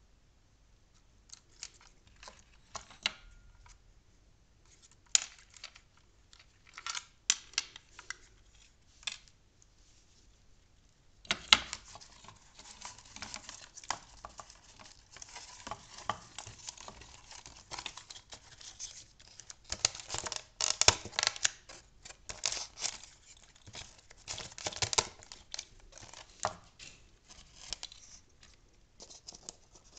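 Hands handling wires and small parts on a paper-covered board: scattered clicks and rustles, turning into a denser run of rustling, crinkling and scraping about eleven seconds in.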